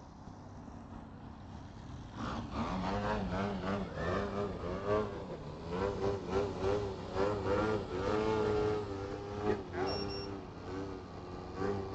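FPV racing quadcopter motors whining, the pitch rising and falling constantly with the throttle; the sound starts about two seconds in. A short high beep about ten seconds in.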